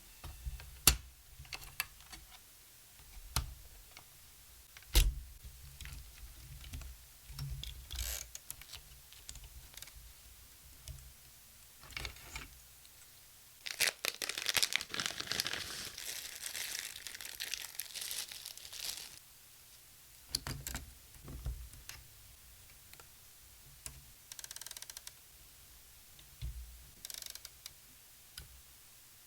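Hands working a Hermes Baby portable typewriter while changing its ink ribbon: scattered metal clicks and knocks from the machine's parts, with a stretch of dense rustling about halfway through.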